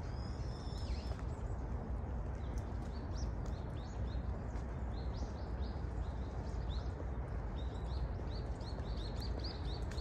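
Small birds giving many short, quick chirps, more tightly bunched near the end, over a steady low background rumble.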